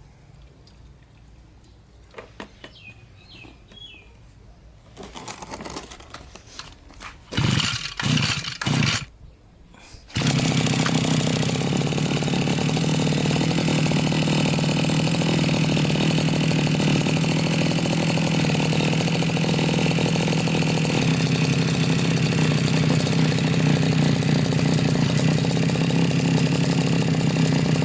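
Petrol grass cutter (brush cutter) engine being pull-started. A few quiet handling clicks, then a few quick recoil-starter pulls, and about ten seconds in it catches and runs steadily at idle, showing that fuel now reaches the carburettor through the new fuel hose.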